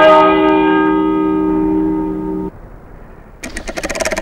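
A bell struck hard, ringing with several steady tones and cut off abruptly about two and a half seconds in. Near the end a fast, even run of sharp taps begins.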